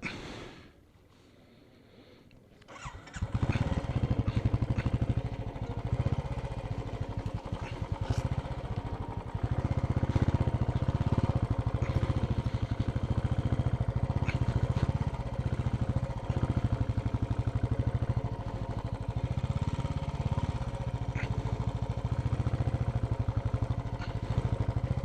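A brief noise at the very start, then a motorcycle engine starts about three seconds in. It runs steadily for the rest of the time with a fast, even pulsing beat.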